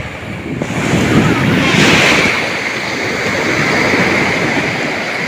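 Sea surf on a beach: a wave breaks, swelling to its loudest around two seconds in, then settles into a steady hiss of wash.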